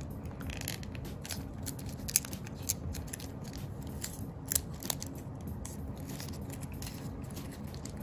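Sheet of origami paper being folded and creased by hand: scattered crisp crackles and ticks of the paper, a few of them louder, over a faint steady low hum.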